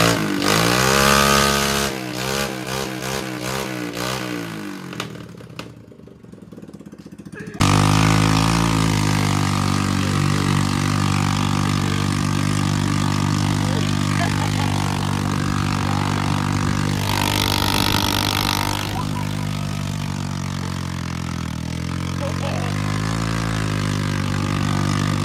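Straight-piped Hammerhead go-kart engine, running with its exhaust removed. It revs up and down in quick blips at first, then after a sudden cut runs steadily under way, its revs rising and falling.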